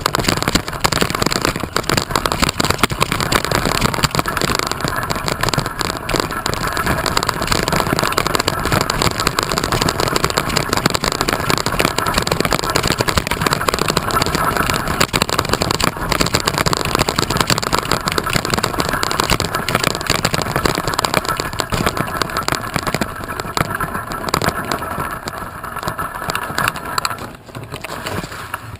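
Steady rushing noise of wind buffeting the microphone while on the move, dropping off shortly before the end.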